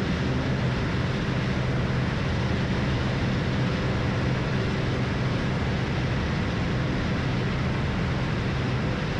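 Steady drone of a Cessna Turbo Centurion's new turbocharged engine and propeller in level flight, heard inside the cabin, with a low hum under an even rush of air and engine noise.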